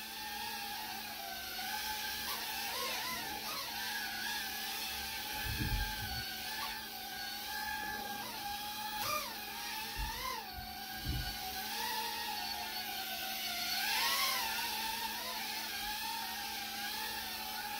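Tiny whoop quadcopter's small brushless motors whining in flight, the pitch rising and falling with the throttle, with a few dull low thumps around six and eleven seconds in. It is flying at normal power even though a 25% throttle limit has been set, which the pilot finds is not taking effect.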